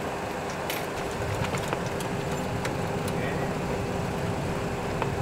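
Boeing 737 Classic full flight simulator's engine and runway rumble during touchdown and landing roll, growing louder about a second and a half in, with scattered clicks and knocks.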